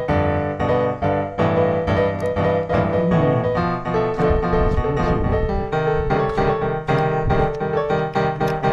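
Background piano music, with a steady run of notes.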